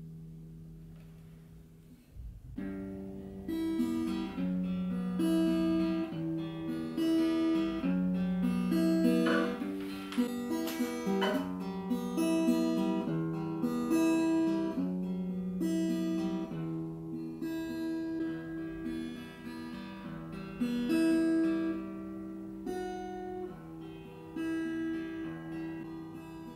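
Acoustic guitar being played: a slow tune of picked notes and chords that starts about two seconds in, after a held note fades out. It is recorded through a compact camera's built-in microphone.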